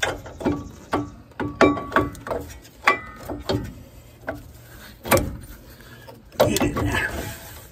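Metal-on-metal clanks and knocks, with short metallic rings, as a brake caliper is worked down over new pads onto the front brake of a Ford F350 Super Duty. There is a louder knock about five seconds in, and a second or so of rubbing noise near the end.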